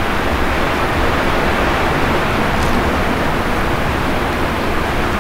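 Steady hiss of noise, even and unbroken, with no speech or music and no distinct knocks or tones.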